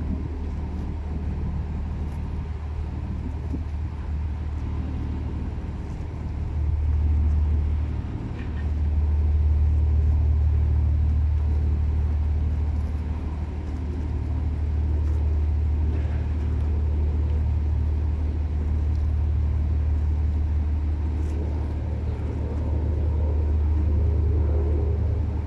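A ship's engine running, a steady low rumble with faint steady tones above it; it dips briefly about eight seconds in, then comes back louder and stays up.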